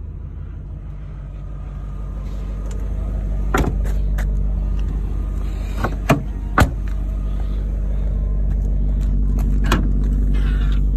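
BMW E39 M5's S62 V8 idling steadily, growing louder toward the end. A few sharp knocks come through over the idle around the middle.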